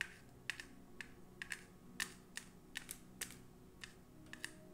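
Small plastic rhinestones clicking against a plastic palette as a tool picks through them: about a dozen light, irregularly spaced clicks.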